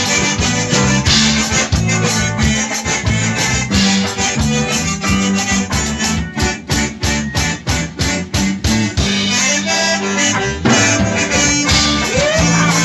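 Instrumental break of a gaúcho band song, with a reedy accordion melody over guitar and a steady beat.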